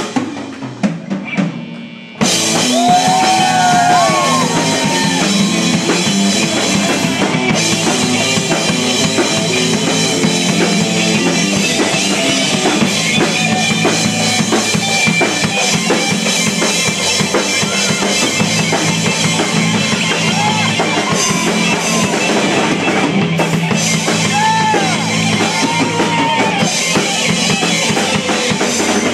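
Live heavy metal band: drums alone for about two seconds, then the full band with electric guitars, bass and drum kit comes in at once and plays on steadily.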